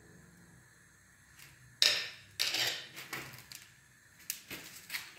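Sharp knocks and clacks of hard objects, starting about two seconds in with the loudest one, then a second strong knock and several lighter clicks.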